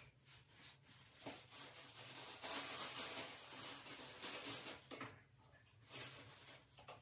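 Thin plastic bag rustling and crinkling as it is handled, loudest between about one and five seconds in, over a faint steady low hum.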